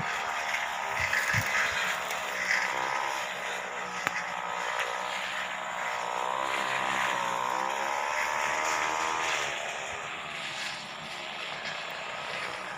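Brush cutter's small engine running, its speed wavering up and down.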